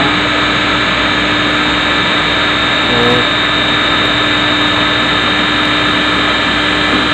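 Electric motor fed by a VFD inverter, running steadily at 60 Hz: a constant hum with several steady high whining tones from the motor and drive.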